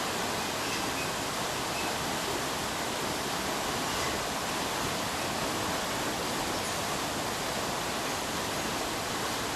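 Rushing floodwater: a steady, dense, even rush of water with no let-up.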